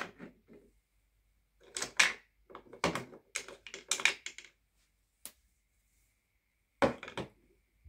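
Makeup tubes and brushes clicking and knocking against a wooden makeup organizer as they are set into its compartments. Short clusters of clicks come about two seconds in, again around three to four seconds, a single click near five seconds and a last clatter near the end.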